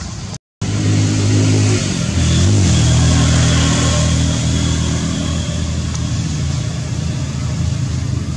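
A motor engine running steadily at close range, with a brief wobble in pitch a couple of seconds in. It cuts in after a short gap of silence near the start.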